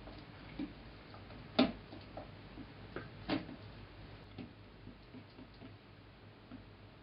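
A utensil clicking and tapping against a glass mixing bowl while stirring a ground chicken mixture: scattered light clicks, with two louder ones about a second and a half and just over three seconds in.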